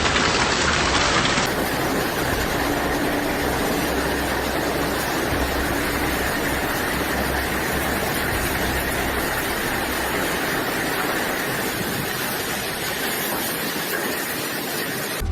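Steady roar of heavy rain and wind in a hurricane storm.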